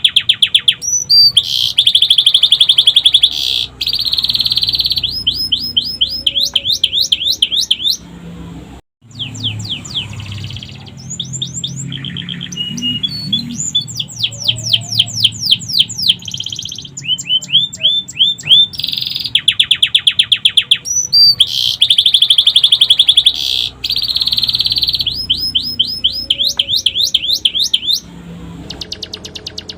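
Domestic canary singing a long, loud song of fast trills and rapid series of upswept notes, its song filled in with phrases copied from the sikatan londo flycatcher. It breaks off briefly about nine seconds in, then carries on.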